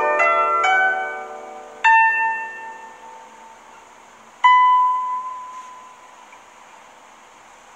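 Guzheng being plucked: a few quick notes at the start, then two single notes about two and a half seconds apart, each left to ring and fade away.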